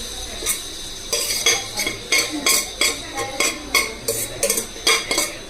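Metal ladle scraping and clinking against a steel cooking pan in quick, repeated strokes, about two or three a second, as fried coriander leaves are scooped out.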